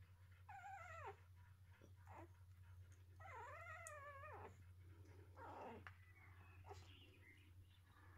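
Eight-day-old Australian Shepherd puppies whining and squealing: several short high cries and one longer wavering cry about three seconds in, over a steady low hum.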